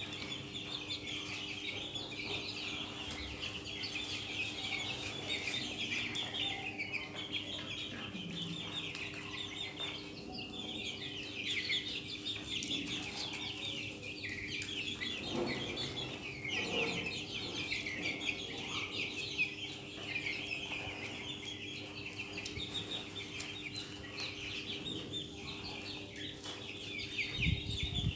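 A flock of young Australorp chickens peeping: a dense, continuous high chatter with a few lower clucks about midway, over a steady low hum.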